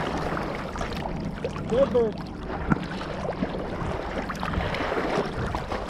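Pond water sloshing and splashing around a retriever as it swims and wades, heard from a camera strapped to the dog's back, with dry cattail stalks brushing and snapping against it. A short cry that rises and falls cuts in about two seconds in.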